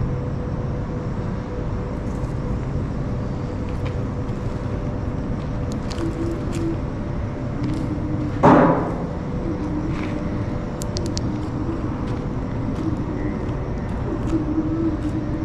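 Steady low rumble with a faint constant hum, broken once, about eight and a half seconds in, by a single loud knock or bang.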